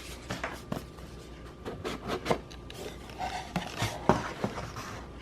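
A small product box being handled and opened: scattered scrapes, rubs and light taps of cardboard and plastic packaging.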